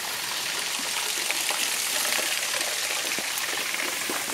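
Water of a small rocky creek trickling and splashing over stones below a waterfall: a steady hiss, a little louder in the middle.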